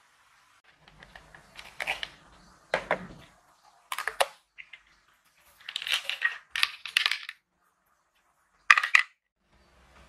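Plastic supplement bottles and their tablets clattering and clicking as they are handled, in about half a dozen short bursts.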